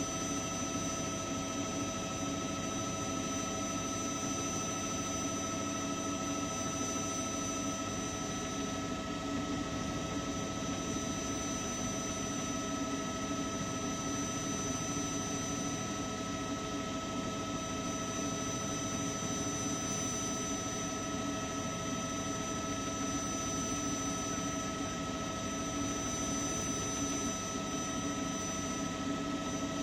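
News helicopter's turbine engine and rotors running steadily: a constant high whine over a low hum, with no change in pitch.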